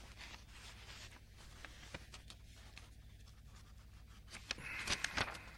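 Paper rustling as sheets of a speech are handled close to desk microphones, with a cluster of sharper crackles about four to five seconds in, over a low steady hum.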